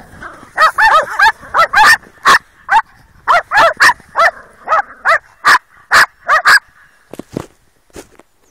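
Small dogs barking at play: a quick string of nearly twenty sharp, high barks over about six seconds, then stopping, with a few faint knocks near the end.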